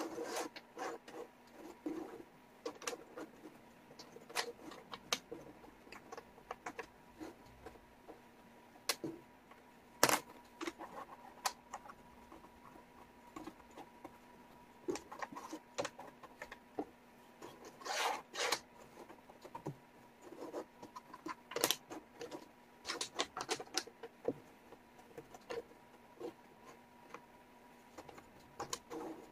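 Wooden jigsaw pieces clicking and sliding on a tabletop as hands sort and fit them: scattered irregular taps and rubs, one sharper click about a third of the way in, over a faint steady hum.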